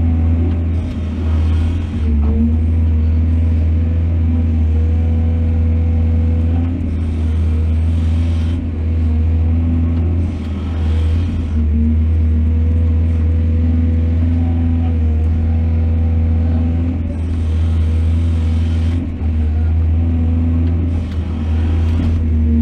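Excavator's heavy diesel engine running steadily under load, with a brief swell of hiss every few seconds as it works.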